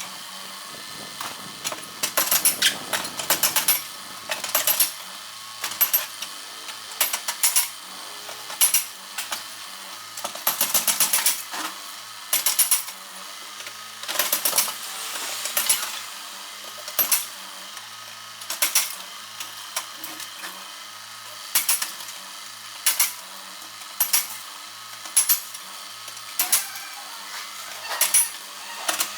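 Excavator demolishing a house: short clattering crashes of breaking debris, roughly one a second, over a faint steady low engine hum.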